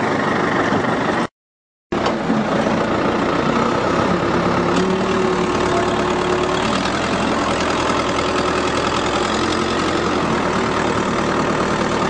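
The engine of the machine hoisting the car runs steadily. A steady higher tone joins in for a couple of seconds midway.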